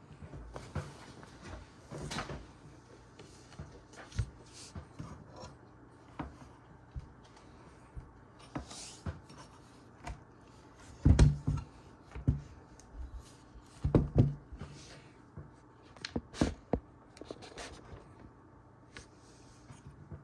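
Objects being handled and set down: scattered light clicks and knocks, with a few louder thumps in the second half.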